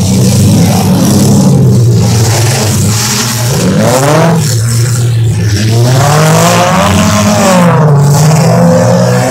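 Several race car engines running hard in a Bump N Run race, their pitches rising and falling as the drivers accelerate and back off, with a sharp climbing rev about four seconds in.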